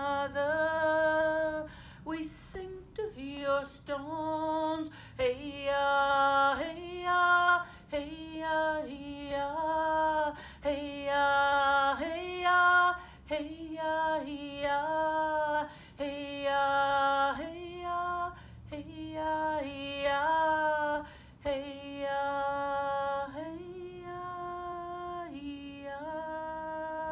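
A woman singing unaccompanied: a slow melody of held notes that slide from one pitch to the next, ending on one long held note.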